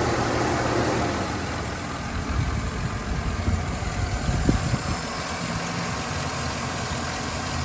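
Chevy Silverado's 5.3-litre V8 idling steadily on fresh spark plugs and plug wires, the idle settled down and running smoothly with no misfire.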